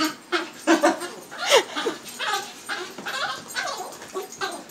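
Small dog yipping and barking excitedly in a rapid string of short, high calls.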